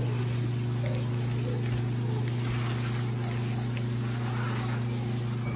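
Water spraying from a handheld shower head and splashing onto wet hair and the shower floor during a hair rinse, over a steady low hum.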